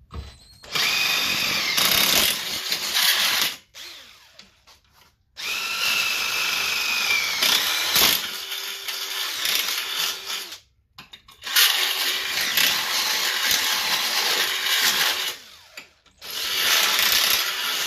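Cordless drill boring holes through a steel bracket in four bursts with short pauses between them, the bit giving a high whine that falls slightly as it cuts.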